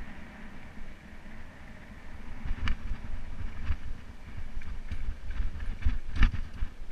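Mountain bike rolling fast along a dirt single track: a steady low rumble from the tyres and wind on the microphone, with the bike rattling and clattering over rocks in the second half, loudest about six seconds in.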